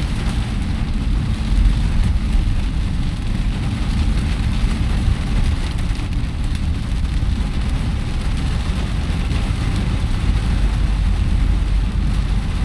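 Steady rain falling on a car's roof and windows, heard from inside the cabin, over a constant low rumble.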